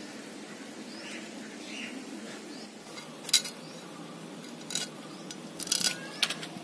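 Small fish being scaled and cut against the iron blade of a boti: a handful of short, sharp scraping strokes, spaced out in the second half, the loudest about halfway through.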